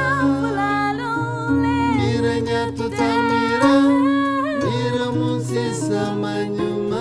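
Kora, the West African calabash harp-lute, plucked under a sung melody: a voice singing over ringing low bass notes and higher plucked lines.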